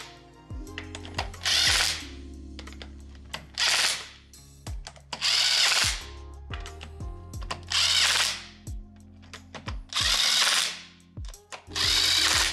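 Power tool running in six short bursts, about every two seconds, driving in the bolts of a Subaru differential cover, over background music with a steady beat.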